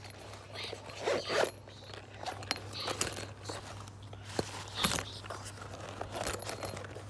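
Zipper on a child's fabric Spider-Man bag being worked open in several short pulls, with rustling and handling of the bag.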